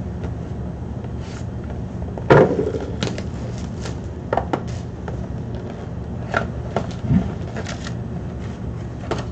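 Hands opening and handling a sealed box of trading cards: scattered short clicks and rustles of cardboard and wrapper, with one sharper knock about two seconds in. A steady low hum sits underneath.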